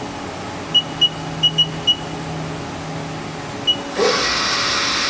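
Six short high beeps from the Haas CNC control's keypad as the spindle is commanded. Then, about four seconds in, the machine's 12,000 RPM inline direct-drive spindle starts up and runs with a steady high whir, on its way to about 4,000 RPM.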